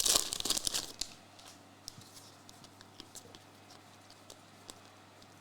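Plastic-foil trading-card pack wrapper crinkling and tearing as the pack is opened, stopping about a second in. After that come only a few faint scattered ticks.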